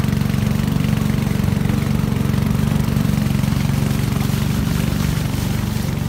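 Engine of a small wooden passenger boat running steadily under way, a constant low drone with water and wind noise over it.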